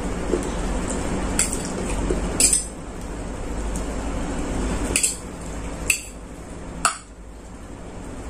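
A metal fork clinking several times against a plate as instant noodles are slurped in and chewed, the clinks short and sharp.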